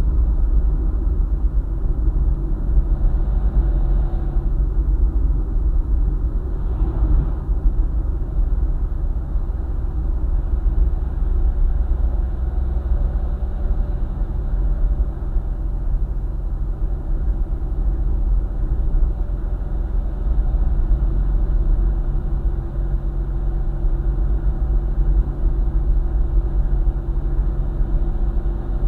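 Car driving steadily along a highway: a continuous low rumble of road and engine noise, with a brief louder swell about seven seconds in.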